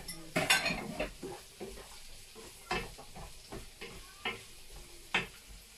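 A wooden spoon stirring diced vegetables in a non-stick frying pan, with irregular knocks and scrapes against the pan over a faint sizzle. The strokes come thickest about half a second in, then as single knocks spaced about a second apart.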